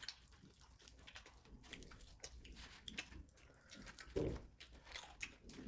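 People chewing and biting into fried chicken, with faint scattered crunches and small mouth clicks. A louder, short, low muffled thump comes about four seconds in.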